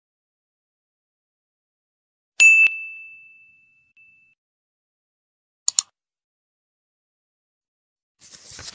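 Sound effects of an animated subscribe end screen: a single bell-like ding about two and a half seconds in that rings out for about a second, a quick double mouse click near six seconds, and a short rushing noise near the end.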